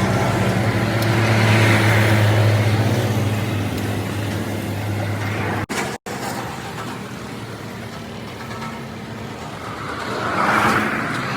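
Road vehicle noise: a steady engine hum, with traffic swelling past twice, about two seconds in and near the end, and two brief dropouts about six seconds in.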